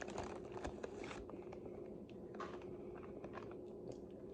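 Close-miked mouth sounds of eating seafood: soft biting and chewing with small wet clicks and smacks, busier in the first second and sparser after.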